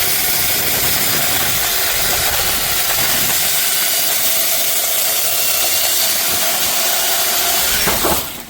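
A brushless 12-inch cordless electric chainsaw running at full speed with a steady whine as its chain cuts through a small tree trunk, stopping about 8 seconds in.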